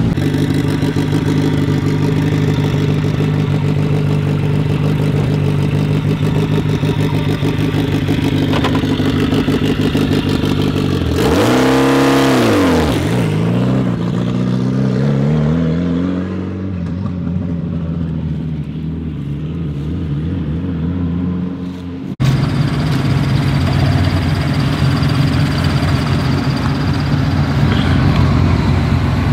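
Rally car engines. One idles steadily, then is revved hard about a third of the way in and falls away as it fades. After a cut, another rally car engine idles steadily.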